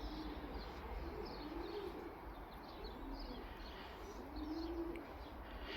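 A pigeon cooing in repeated low phrases, with small birds chirping faintly higher up.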